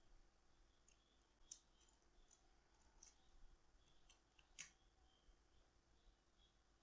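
Near silence: faint room tone with a few small, sharp clicks, the plainest about a second and a half in and again about four and a half seconds in.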